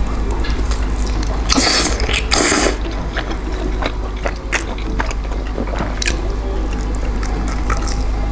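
Close-up eating sounds of someone gnawing and sucking meat off a grilled lamb rib: wet mouth clicks and smacks, with two short slurps about one and a half and two and a half seconds in. A steady low hum runs underneath.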